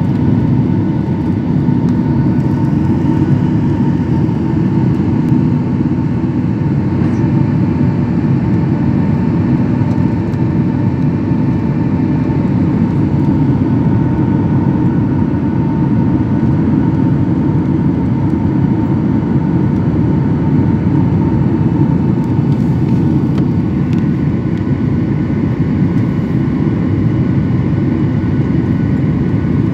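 Steady cabin noise of a jet airliner in flight, heard from a window seat over the wing: a dense low rumble of engines and rushing air with a faint steady whine, during the climb after takeoff.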